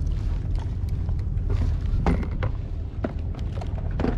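Scattered clicks and knocks of fishing tackle being handled on a kayak, over a steady low wind rumble on the microphone.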